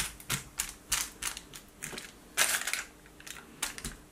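A metal spoon turning and pushing marinated raw chicken wings around a disposable aluminium foil tray: irregular clicks and scrapes against the foil, several a second, the loudest cluster about halfway through.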